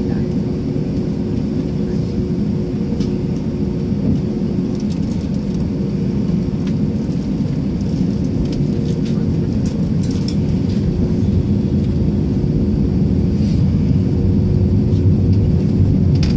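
Jet airliner engines and cabin heard from inside during taxi: a steady low rumble with a constant hum, slowly growing louder over the seconds, with light scattered rattles of the cabin.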